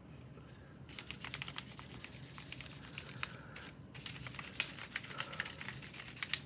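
Chalk pastel scratching on paper in quick, short strokes, starting about a second in, with a brief pause a little past the halfway point before the strokes resume.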